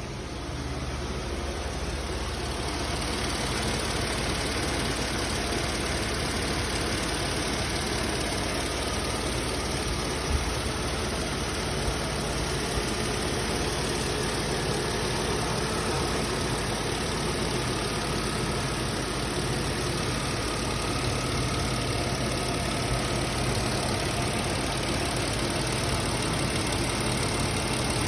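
Mercedes-Benz M112 3.2-litre V6 engine running steadily at slightly lowered revs, with no knock: reducing the revs made the knock go away.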